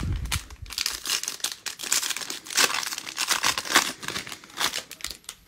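Foil wrapper of a 2022 Panini Mosaic Baseball hobby pack crinkling and tearing as it is ripped open by hand, a dense irregular crackle that stops near the end.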